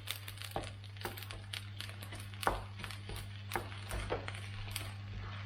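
A cooking utensil knocking and scraping in a frying pan as rice is stirred into scrambled egg, in quick irregular clicks over a steady low hum.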